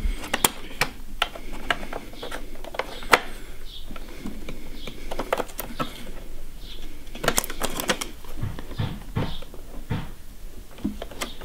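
Irregular clicks and taps of a RAM stick being lined up and fitted into an iMac's memory slot.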